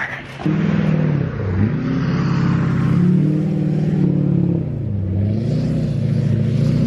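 Pickup truck's engine revving under load as the truck drives through mud. The pitch dips twice and climbs back up.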